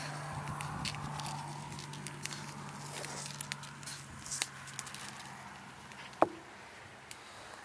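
Salt sprinkled by hand over raw eel pieces in a plastic bowl, the grains pattering as scattered light ticks over a low steady hum. The hum stops about six seconds in, at a single sharp click.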